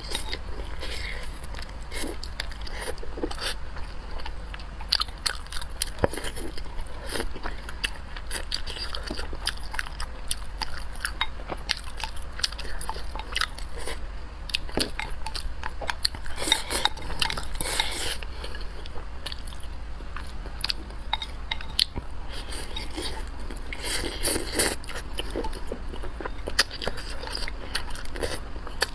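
Close-miked eating sounds: a person biting and chewing food, with frequent small crunches and mouth clicks and a few denser noisy stretches.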